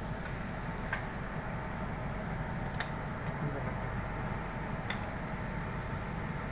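Steady low background hum with about five faint, light clicks scattered across it.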